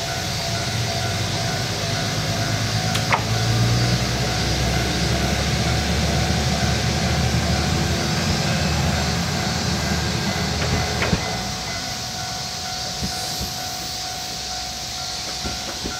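Isumi 300-series single-car diesel railcar pulling away: its diesel engine's rumble swells about three seconds in as it accelerates, then fades after about eleven seconds as it draws away. A sharp click sounds about three seconds in and another about eleven seconds in.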